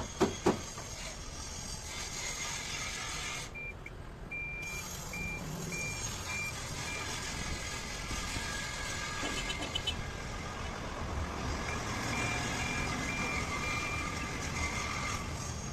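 A vehicle's reversing alarm beeping in two runs of evenly spaced high beeps, about two a second, over a steady background of machinery noise. A few sharp knocks come right at the start.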